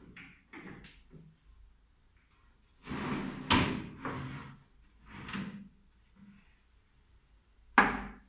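Wooden extending dining table being pulled open: the tabletop halves scrape apart on metal runners, with clunks and knocks. A sharp, loud knock comes near the end as the folded centre leaf is handled.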